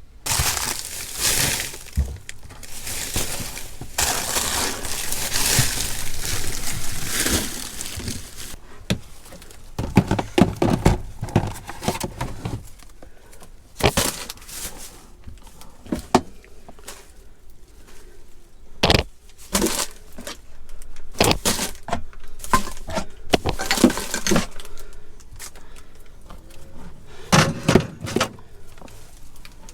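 Clearing out a fridge by hand: irregular knocks and clinks as containers and items are handled and set down, with stretches of rustling, the loudest of it in the first several seconds.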